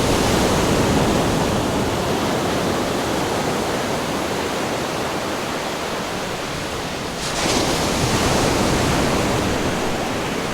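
A loud, steady hiss of noise, with a brief brighter swish about seven seconds in.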